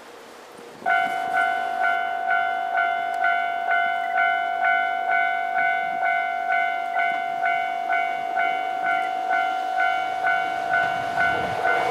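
Railway level-crossing alarm starting abruptly about a second in and ringing about twice a second over a steady tone. Near the end the rumble of an approaching electric locomotive rises beneath it.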